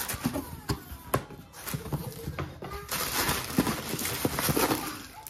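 Plastic bags crinkling and rustling as hands shift bagged whole fish in a cardboard box, with repeated sharp knocks and taps as the packages bump together and against the carton. The crinkling is densest a little past halfway.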